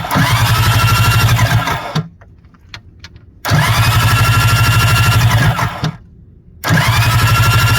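Yamaha SJ700 stand-up jet ski's twin-cylinder two-stroke engine starting and running, its pitch rising as it picks up. It stops twice and starts again each time, about a second after each stop.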